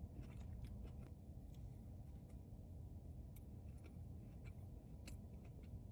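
Faint chewing of a soft mochi-covered cheesecake, with scattered soft mouth clicks over a low steady hum.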